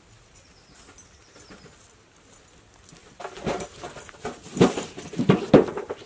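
A metal wheelbarrow loaded with pine cones being pushed along a dirt path, with a rattling, clunking clatter of the tray and load and footsteps. It is faint at first and grows loud about three seconds in as it passes close, with the loudest knocks near the end.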